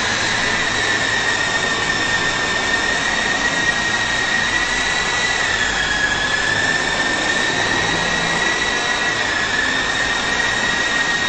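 Syma S009 RC toy helicopter's small electric motors and rotors whining steadily at a high pitch over a steady hiss, the pitch dipping briefly about six seconds in.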